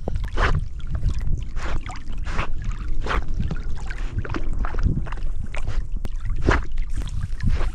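Water splashing and gurgling close to the microphone as a Labrador retriever swims and paddles, with irregular splashes over a steady low rumble.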